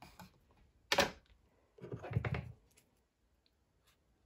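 Hands handling small paper pieces and craft supplies on a tabletop: a short sharp rustle about a second in, then a longer rustling and knocking around two seconds in.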